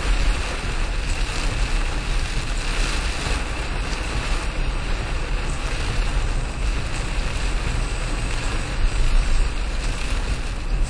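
Steady road and wind noise inside a moving car: a low rumble with a hiss over it.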